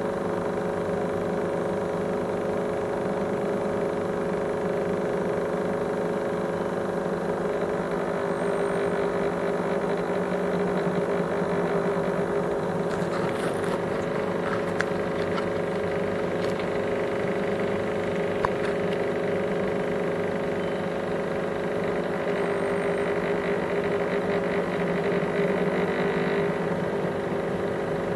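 A steady mechanical hum made of several held tones over a low noise, with a few faint clicks around the middle.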